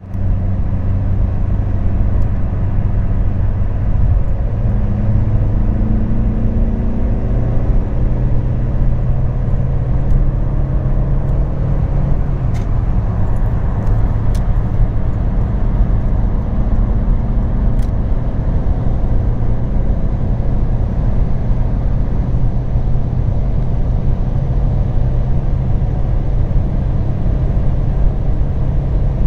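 Cabin noise of an Alfa Romeo 147 1.9 JTDm 16V four-cylinder turbodiesel driving at high speed: steady engine, tyre and wind noise, with a low tone that climbs for a few seconds near the start as the car gathers speed.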